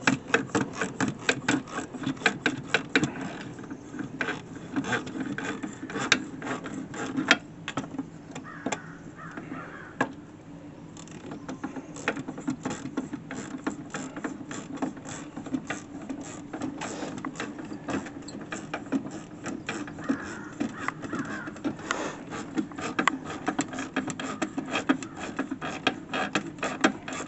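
Rapid, irregular clicking of a hand tool working a nut off from under a jet ski's jet pump, with a short lull about ten seconds in.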